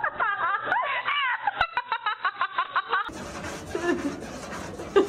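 A person laughing hard, in a run of high, wavering bursts that speed up into short rapid giggles before stopping about three seconds in.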